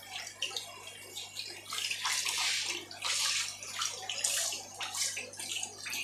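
Water splashing and sloshing in a hand net packed with small yellow parrot cichlids, the fish thrashing at the surface. The splashes come irregularly and are loudest about two and three seconds in.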